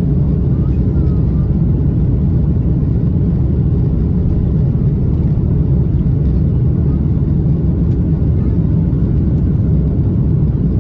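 Steady low rumble inside an Airbus A330-300 passenger cabin: the constant drone of the engines and airflow, with no change in level or pitch.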